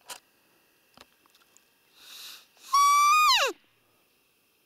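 A hand-held roe deer call blown once to lure roe deer in the rut: a short breathy hiss, then a loud, high whistled squeak that holds steady and then slides sharply down in pitch, lasting under a second.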